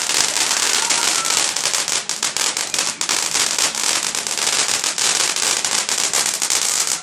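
Fireworks crackling: a dense, continuous run of rapid sharp pops and crackles with no pause.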